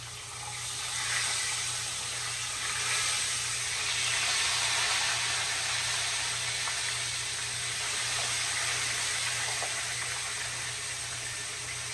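Hot oil sizzling steadily around a whole red snapper frying in a cast-iron skillet, the sizzle swelling about a second in as the fish is turned with tongs and settled back in the pan.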